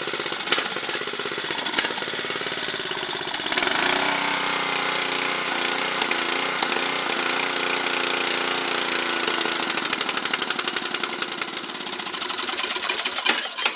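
1987 8 hp Briggs & Stratton single-cylinder engine on a Snapper rear-engine mower running rough. It picks up about 4 seconds in, stumbles unevenly near the end and then dies suddenly. The owner puts the poor running down to too much gas poured into the carburetor and a carb that needs adjusting.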